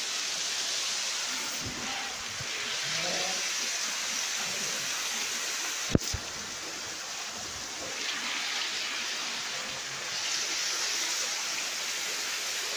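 A thin jet of spring water falling from a rock overhang and splashing onto wet stone: a steady splashing hiss. A single sharp click about six seconds in.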